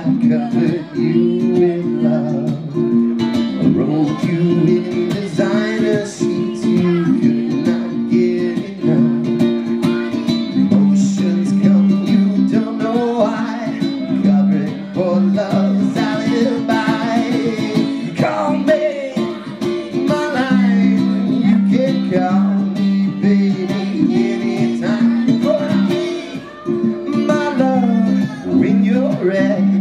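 Live solo acoustic performance: a man singing to his own strummed small acoustic string instrument, heard through a PA. The chords ring steadily throughout, with the sung melody above them.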